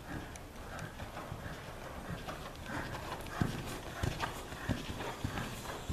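Hoofbeats of a cantering dressage horse, dull thuds in a steady rhythm about every 0.6 seconds, plainer in the second half.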